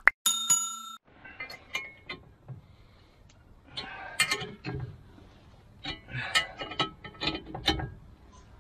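Metal struck once near the start and ringing briefly, then irregular metallic clinks and taps of hand tools working a wheel-hub puller.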